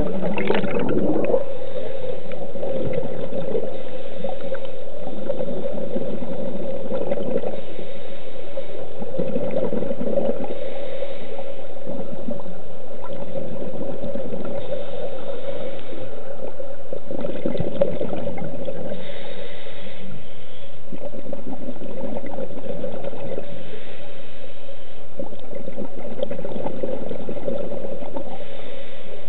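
Underwater sound of a scuba diver breathing through a regulator: a hiss with each inhalation and a rumbling gurgle of exhaled bubbles, recurring every few seconds over a steady hum.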